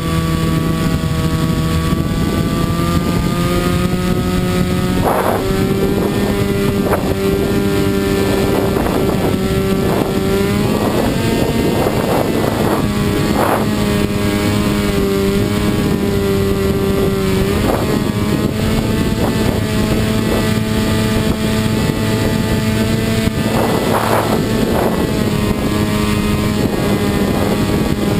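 A radio-controlled paracopter's motor and propeller running steadily in flight, heard from on board, with brief gusts of wind buffeting the microphone. The pitch steps up slightly about five seconds in and again a little after the midpoint.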